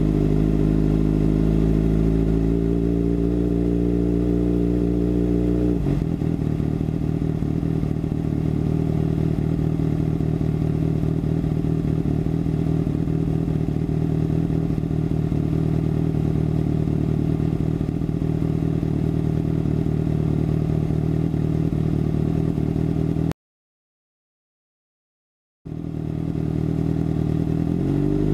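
A 2013 Kawasaki ZX-6R 636 inline-four running through a Racefit slip-on exhaust. It is held at raised revs with the pitch slowly climbing, then drops abruptly to a lower, lumpier idle about six seconds in. Near the end the sound cuts out completely for about two seconds, then returns with the revs rising again.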